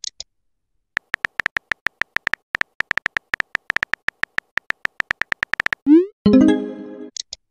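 Simulated phone-keyboard typing sounds: rapid short, beep-like key clicks, about six or seven a second, as a message is typed. About six seconds in they stop, and a quick rising swoop is followed by a ringing chime, the chat app's message sound.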